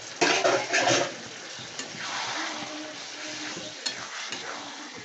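A spatula stirring shredded chicken in masala in a sizzling pan, freshly wetted with a little water. There is a loud burst of scraping and sizzling in the first second, then a softer sizzle.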